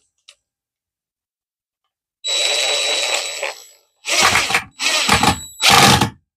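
DeWalt cordless impact driver driving a screw into 2x4 wood, with a rattling, whining run of about a second and a half starting about two seconds in, then three short bursts as the screw is seated.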